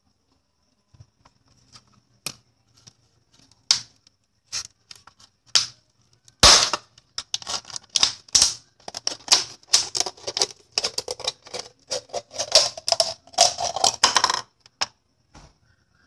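Small stones clicking and rattling against hard plastic and a ceramic bowl as they are handled: scattered clicks at first, then a dense clatter from about six seconds in until near the end.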